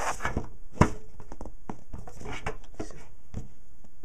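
Hands handling and starting to open a tablet's cardboard retail box: scattered clicks, taps and scrapes, with one sharp knock a little under a second in.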